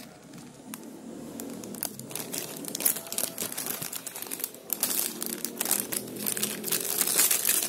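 Plastic sachets in a long strip crinkling and crackling as they are unfolded and handled, the crackles irregular and getting louder over the seconds.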